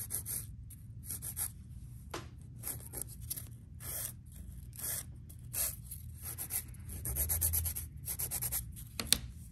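A nail file rubbing back and forth across a fingernail in short, quick strokes that come in uneven runs.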